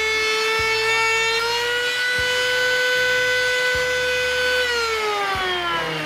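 Electric router's motor whining at high speed, then switched off about four and a half seconds in, its pitch falling steadily as the bit spins down.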